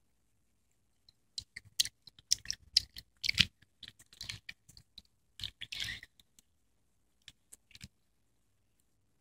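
Metal spoon scraping and clicking in a plastic candy tray as it digs through soft candy paste: irregular short scrapes and taps starting about a second in, busiest in two spells, and stopping shortly before the end.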